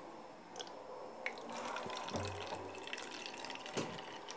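Water poured from a plastic measuring jug into the narrow neck of a plastic bottle: a thin trickle with scattered drips and splashes, growing louder about a second and a half in.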